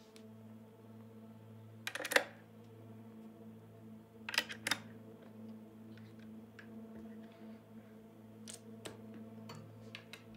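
Jack plugs being pushed into a volume pedal's sockets and the pedal being handled: sharp clicks and knocks, two about 2 seconds in, two more about 4.5 seconds in, and a few near the end. Under them runs a steady electrical hum from the plugged-in effects rig.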